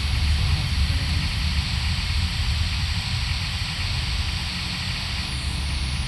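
Car driving, heard from inside the cabin: a steady low engine and road rumble with an even hiss over it.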